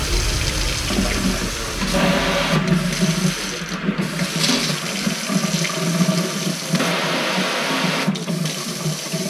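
Water running steadily from a kitchen faucet into a sink, a steady rushing splash.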